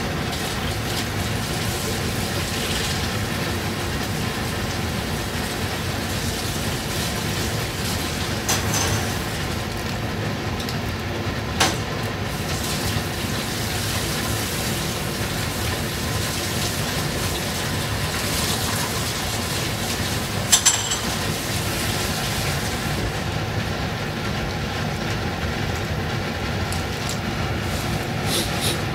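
A wok of clams in broth boiling hard on a gas burner: a steady bubbling and burner noise, with a few sharp clinks of a metal ladle against the wok.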